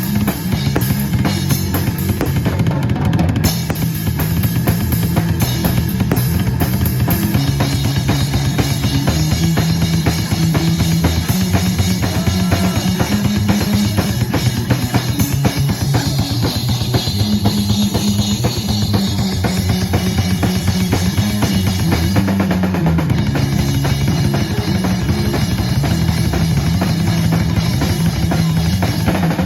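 Live rock band playing an instrumental passage, with drum kit (kick, snare, rimshots) and a prominent bass line.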